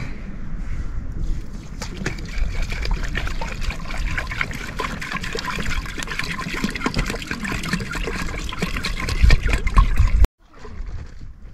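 Water trickling and sloshing, with many small crackles, cutting off abruptly about ten seconds in.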